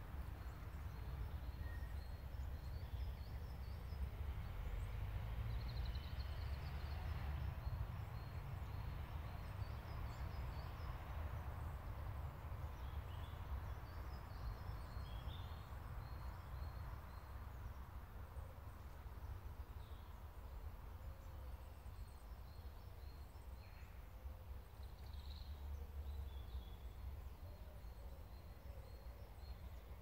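Woodland ambience: a low rumble of wind on the microphone, with small birds giving thin, high chirps in quick repeated runs. A soft rushing sound, like wind through the trees, swells and fades in the first half.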